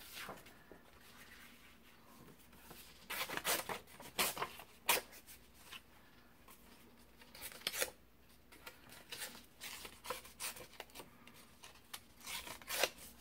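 Scrapbook paper handled by hand: scattered rustles and crinkles in short groups, with small pauses between them.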